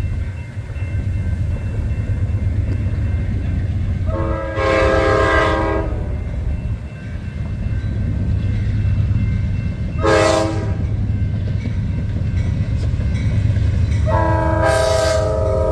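Hybrid Nathan K5LA five-chime locomotive air horn sounding a chord three times: a long blast, a short blast, then another long one near the end, over a steady low rumble.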